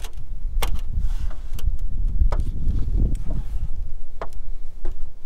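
Wind buffeting the microphone in a low, uneven rumble, with about six sharp clicks and scuffs from a person moving about on an asphalt-shingle roof.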